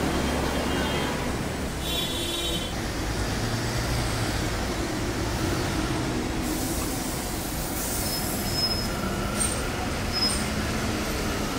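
Steady road-traffic noise: a continuous low rumble and hiss of passing vehicles heard from a footbridge over the street. About two seconds in there is a short high squeal, and faint high tones come near the end.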